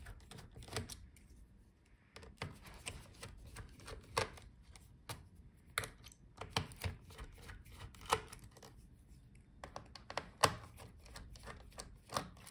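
Precision screwdriver turning out the small screws of a Lenovo ThinkPad E14 Gen 2's hinge: faint, irregular clicks and ticks of the bit and screws on the metal hinge, with a few sharper clicks.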